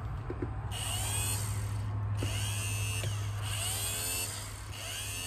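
Corvette C3 power window motor, off its regulator and running with no load, whining in about four short runs as the switch is pressed; each run's pitch rises and falls. The freshly repaired motor now works.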